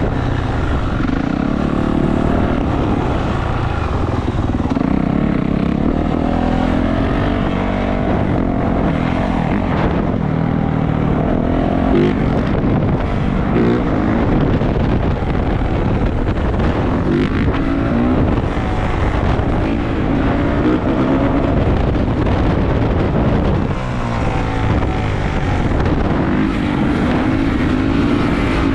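450cc four-stroke dirt bike engine being ridden, its revs rising and falling again and again as the throttle opens and closes through the gears.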